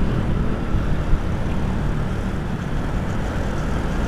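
Steady rumble of wind rush and engine from a Yamaha Jupiter MX King single-cylinder motorcycle being ridden through traffic, picked up by the rider's onboard camera.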